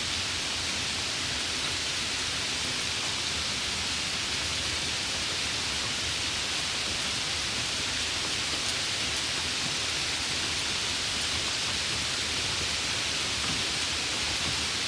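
Steady, even rain, a dense continuous hiss with no distinct drops or breaks.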